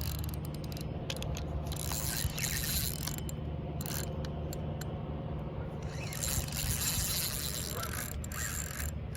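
Fishing reel ratcheting in rapid runs of fine clicks while a big hooked carp is being fought, the reel being cranked and line being worked, over a steady low rumble.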